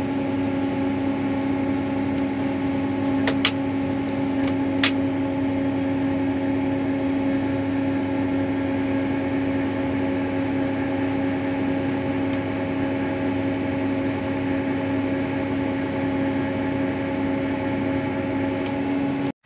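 John Deere track tractor running steadily under load as it pulls a planter, heard from inside the cab as an even drone with a steady hum. A few short ticks sound about three to five seconds in.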